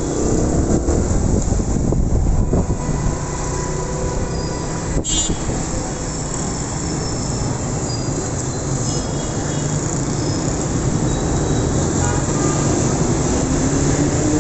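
Steady road-vehicle noise, a low rumble of engines and traffic, with a single sharp click about five seconds in.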